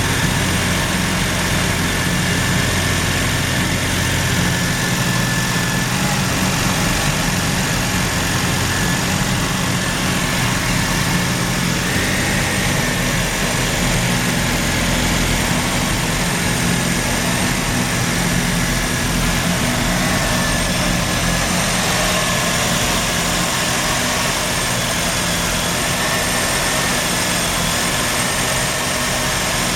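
Mazda RX-7 FD's twin-rotor 13B rotary engine idling roughly and unevenly, the misfire that goes with its very high CO readings.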